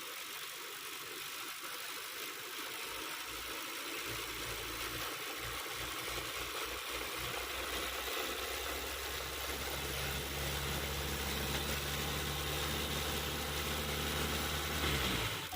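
Hyundai Sonata DN8 2.5-litre engine running, being listened to for a rattling noise. Its low hum comes in unevenly at first, steadies about halfway through, and winds down quickly near the end.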